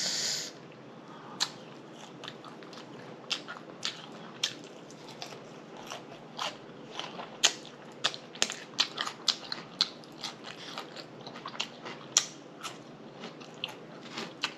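Close-miked chewing and mouth smacking: a long, irregular string of short wet clicks.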